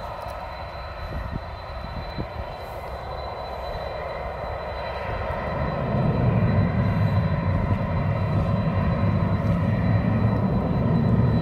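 Jet airliner's engines on the runway: a steady rush with a thin high whine, and a deep rumble that swells and grows louder about halfway through.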